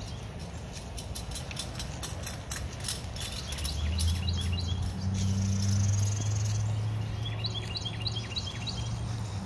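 Songbirds chirping in short repeated runs, over the low engine hum of a passing pickup truck that swells about four seconds in and eases off near the end.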